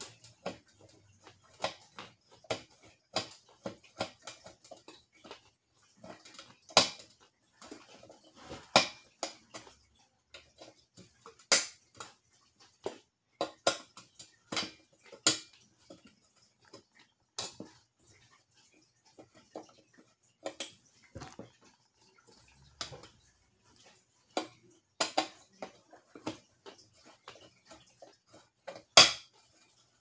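A screwdriver working a screw on a ceiling fan's mounting fitting: irregular small metallic clicks and scrapes, with a few sharper clicks standing out, the loudest near the end.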